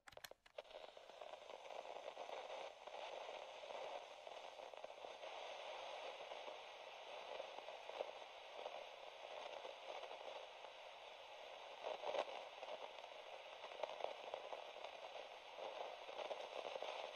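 Faint, steady static-like hiss with light crackle and a couple of sharper ticks.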